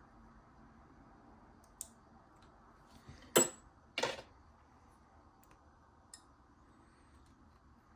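Small metal ticks and two sharp clacks, the second about half a second after the first, from a padlock and shim tools being handled while the core is worked free.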